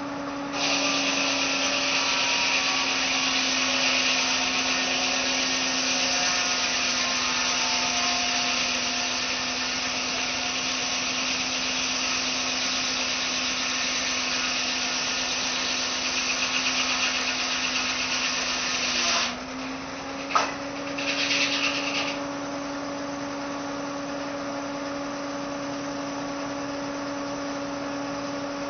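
Tractor-powered sawmill saw cutting through a log for about 19 seconds: a loud, steady hiss of blade in wood over the mill's running hum, which sags slightly in pitch under the load of the cut. The cut ends abruptly and the hum rises back, followed by a sharp knock and a brief rasp. After that the saw runs free with a steady hum.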